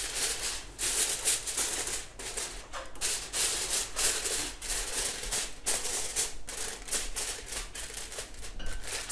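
Aluminium foil crinkling and crackling in quick, irregular bursts as it is pressed and folded by hand over a cooking pot, sealing it for dum cooking.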